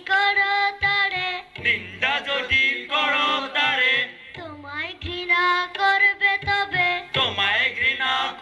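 A group of boys singing a poem together through microphones, voices holding long steady notes with short breaks between phrases.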